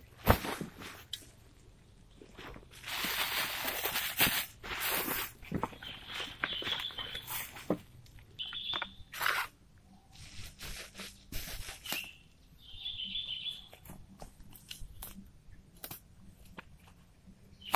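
Rustling and crunching as a heavy backpack is set down and handled on dry pine needles, with footsteps among the needles. A small bird chirps in short clusters several times through the middle.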